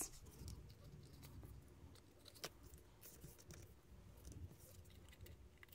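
Near silence with a few faint clicks and paper rustles: small metal binder clips being fitted over a paper spine and its template.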